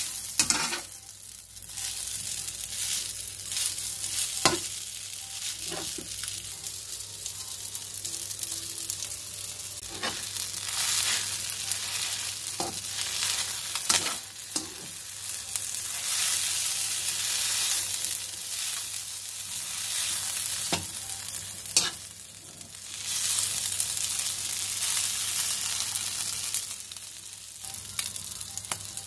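Flat rice noodles stir-frying in a white speckled nonstick wok: a steady sizzle. The spatula scrapes and clicks against the pan every few seconds as the noodles are tossed.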